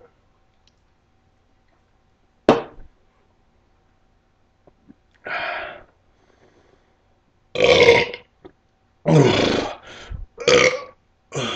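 A man belching loudly several times in a row from gulping carbonated Sprite, each burp short and rough, coming closer together toward the end. A single sharp knock sounds about two and a half seconds in.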